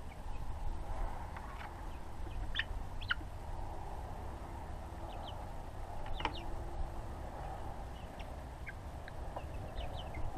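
Young chickens peeping and cheeping now and then, short high chirps scattered through, over a steady low background rush.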